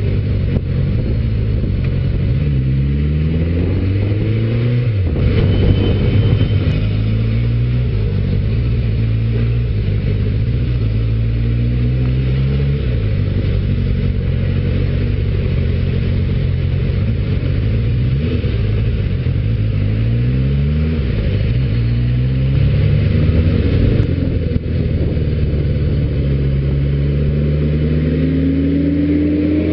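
Motorcycle engine accelerating through the gears several times, its pitch climbing in each gear and dropping at each shift, over a steady rush of wind and road noise. Near the end the revs rise and then fall away.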